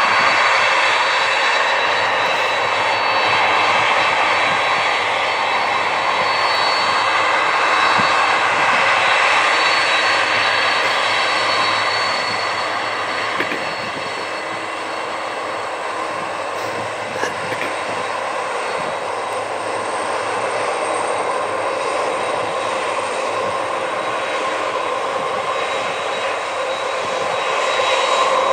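Boeing 747-400 taxiing, its four turbofan engines giving a steady jet whine over a rushing hiss. The sound eases slightly midway and grows again near the end as the aircraft turns away.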